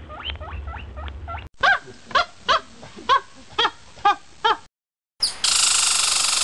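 A quick run of high squeaks gives way to a string of about eight loud honks from a goose, roughly two a second. After a short silence, a loud steady horn-like blare starts near the end.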